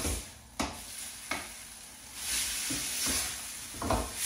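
Chicken pieces frying in a pan of spiced onion and tomato masala, sizzling, with a utensil knocking against the pan three times as it is stirred. The sizzle swells about halfway through.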